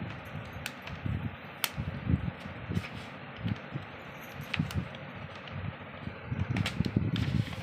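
Hands handling a smartphone and its box packaging: paper and card rustling with scattered light clicks and taps, busier near the end, over a steady hiss.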